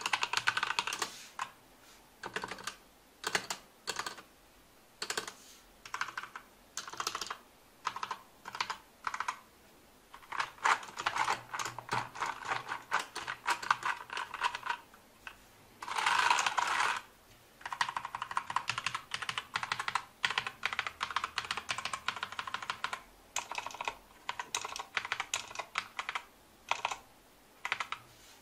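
Typing on a Royal Kludge G87 mechanical keyboard with red (linear) switches: short runs of keystrokes broken by pauses, with a fast, dense flurry of keys about halfway through.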